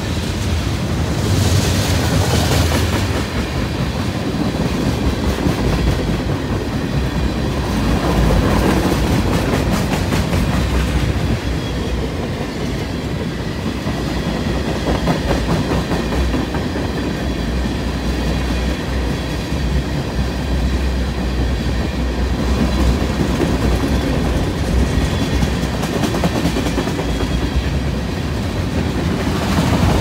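Mixed freight train of boxcars and tank cars rolling past, a steady rumble with the wheels clacking over the rail joints.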